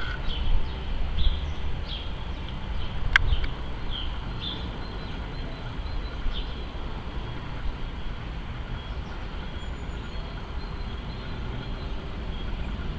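Low steady rumble of a jet airliner flying high overhead, with small birds chirping now and then and a single sharp click about three seconds in.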